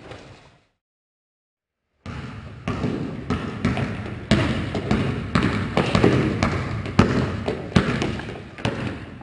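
Basketball being dribbled on a hardwood gym floor, a run of sharp, irregularly spaced bounces, each trailing off in the gym's echo. The sound dies away at the start and there is about a second and a half of silence before the dribbling resumes.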